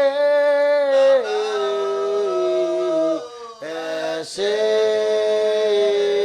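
Unaccompanied singing of a slow thanksgiving song, drawn out in long held notes. There are two phrases, each stepping down in pitch, with a short break about three seconds in.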